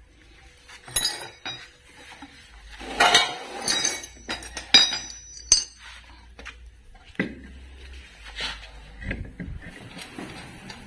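Metal parts and hand tools clinking and knocking as a road wheel is handled and fitted onto the front hub studs over a newly mounted disc brake rotor. There are scattered single clinks, a scrape about three seconds in, and a duller knock near the end.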